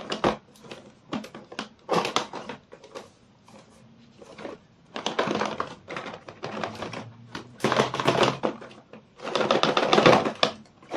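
Rapid tapping and drumming on a cardboard router box, in several quick bursts of clattering knocks.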